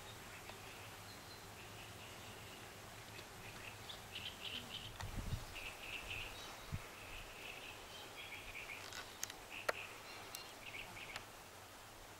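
Faint outdoor birdsong: short, high chirps repeating over a low steady background, with a few sharp clicks late on.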